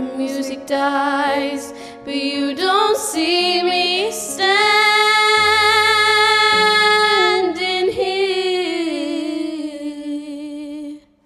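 Two girls singing the close of a slow pop ballad over a soft, sustained backing accompaniment. They hold one long note with vibrato through the middle, then the melody falls and fades out just before the end.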